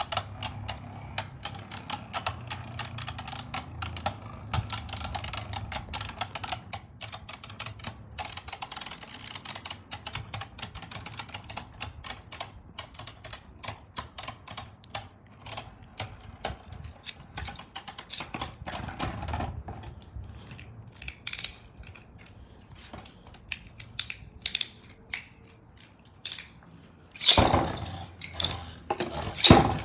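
Beyblade spinning tops making a rapid run of hard clicks, dense for the first several seconds and then thinning out to scattered clicks. A louder burst of sound comes near the end.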